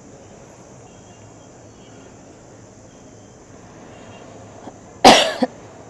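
Night insects, crickets by their sound, chirping steadily in a high band. About five seconds in comes one short, loud, rough noise lasting about half a second.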